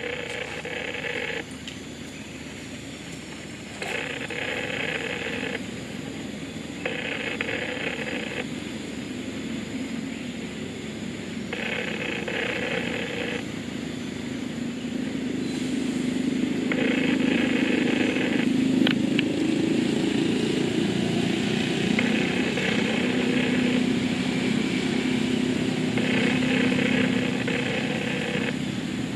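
A motor engine hums steadily and grows louder from about halfway through. Over it, a buzzing call lasting a second or two repeats every few seconds.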